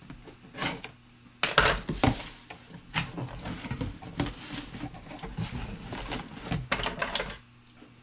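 Cardboard shipping box being opened by hand: packing tape slit with scissors and pulled loose, and the cardboard flaps scraped and folded back. The result is an uneven run of scratchy rustles and knocks, loudest about one and a half to two seconds in.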